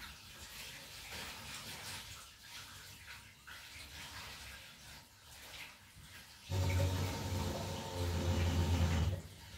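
Water running, joined about two-thirds of the way in by a loud low humming drone that stops shortly before the end.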